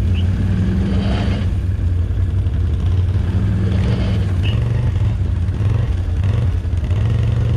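ATV engine running under throttle, revving up in short bursts, about a second in and again about three and a half seconds in, as the machine works to get through soft, sinking ground.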